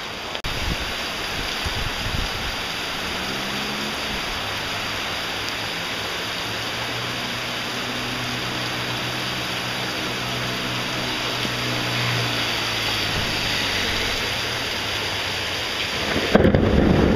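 Heavy rain pouring steadily, with a long low rumble of thunder through the middle. Near the end a louder, deeper rush starts suddenly.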